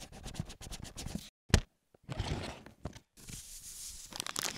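Cardboard box and plastic anti-static bag packaging sounds. A run of quick scratchy clicks is followed by a single thud about a second and a half in, then rustling and crinkling.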